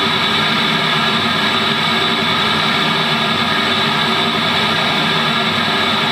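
Avatar MBR-650 16.5 cm car-audio midrange speaker playing a loud, steady noise-like test signal, even and without rhythm.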